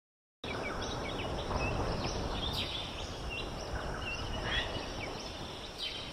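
Forest ambience: many birds chirping and giving short whistles over a steady hiss, starting abruptly about half a second in.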